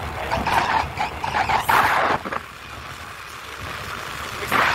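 Steady noise of riding along in a moving vehicle, with a man talking over it for about the first two seconds and briefly again near the end.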